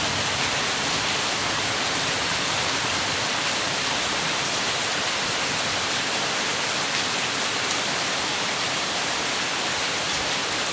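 Heavy rain falling steadily, a dense even hiss of drops with fine scattered patter.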